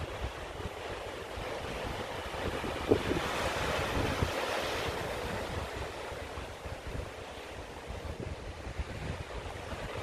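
Sea surf washing through a basalt sea arch and breaking over the boulders below, swelling about three seconds in and easing off a couple of seconds later. Wind buffets the microphone with low rumbles throughout.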